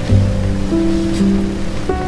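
Background music of slow, held notes that shift to new chords a few times, over a steady hiss of rain.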